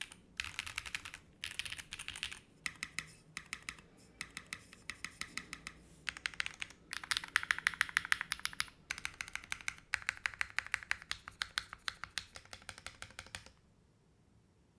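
TB8 mechanical keyboard with Gateron Slay Type A switches and EPBT Origami PBT keycaps being typed on quickly, in runs of rapid keystrokes with short pauses between them. The typing stops about a second before the end.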